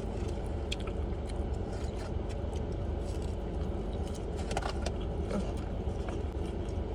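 Steady low rumble of a car's idling engine heard inside the cabin, with scattered small clicks and rustles from chewing and handling food.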